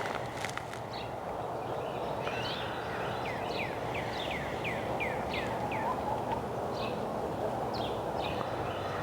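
A bird singing a run of short, down-slurred chirps, about two a second, over steady outdoor background noise.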